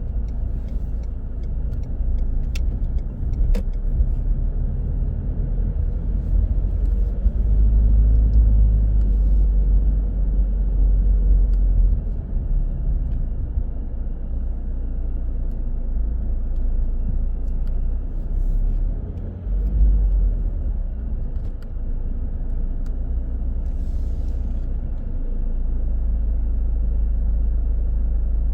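Car driving through city traffic: a steady low rumble of engine and road noise that swells and eases, with a few sharp clicks in the first few seconds.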